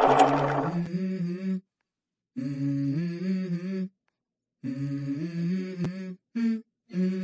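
Low humming voice singing a slow melody of held notes in short phrases, broken by brief silences.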